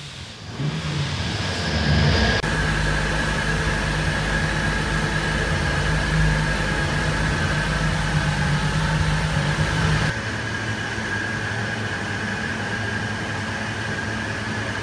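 Steady mechanical running, a low hum with a thin high whine, from machinery at a chassis dyno just after a full-power run. It drops to a quieter level about ten seconds in.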